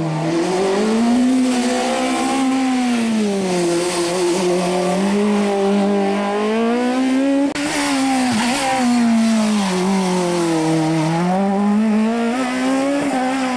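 Rally car engine revving hard, its note climbing and dropping over and over as the car accelerates and lifts off through corners. Near the middle there is an abrupt cut to another car doing the same.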